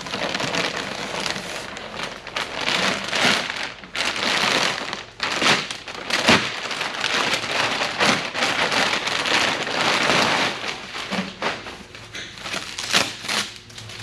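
Protective packaging wrap crinkling and rustling as it is pulled off new exhaust headers, with a few sharper snaps along the way.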